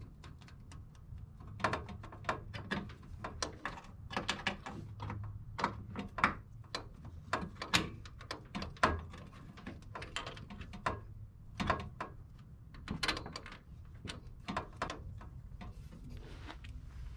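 Irregular metallic clicks and clinks of hands working the clutch cable and its fittings under a 1974 Volkswagen Beetle, over a low steady hum.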